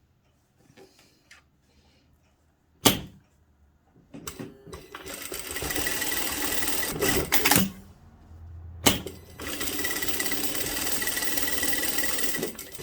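Industrial sewing machine stitching in two steady runs of about three seconds each, a sharp click coming before each run.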